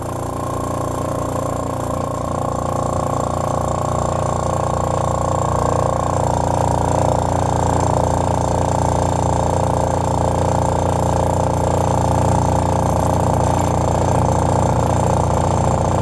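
High-voltage transformer arc buzzing steadily with a loud electrical hum, swelling louder over the first few seconds.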